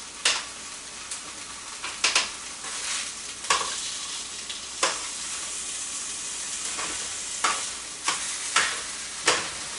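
Food sizzling in a pan, a steady hiss, with about eight irregular clinks and knocks of a utensil against pans or dishes.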